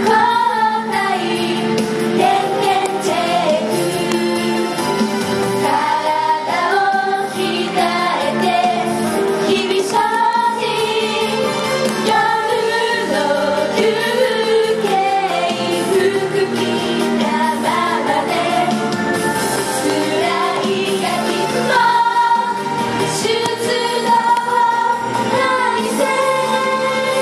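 A chorus of girls singing a Japanese pop song in unison over a recorded backing track.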